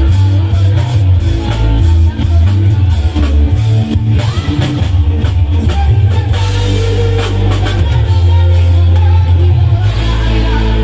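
Loud live band music through a PA system: Electone electronic organs with heavy bass and regular drum beats, with a singer's voice over the melody.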